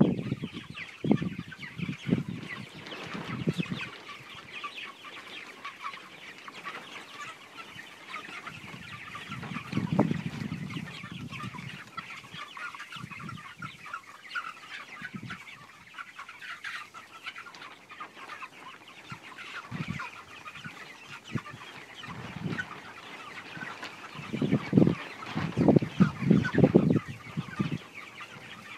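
A large flock of young white chickens calling continuously, many overlapping small calls forming a steady chatter. A few louder low thumps and rumbles come about ten seconds in and again near the end.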